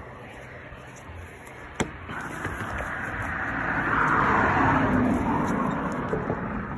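A car passing on the road, its tyre noise swelling to a peak about four to five seconds in and then fading. A single sharp click comes just under two seconds in.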